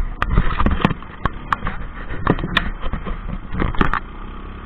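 Off-road buggy engine running at low speed, with repeated sharp knocks and rattles from the buggy and its mount jolting over rough ground.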